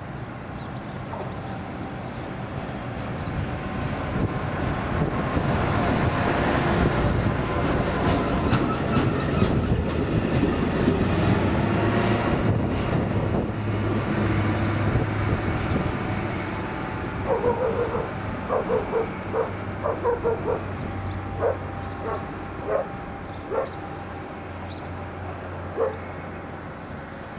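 On-track maintenance machine passing close on its diesel engine, wheels rumbling on the rails under a steady low engine hum, building to its loudest a few seconds in and fading as it moves away. In the second half a string of short barks breaks in, about a dozen, irregularly spaced.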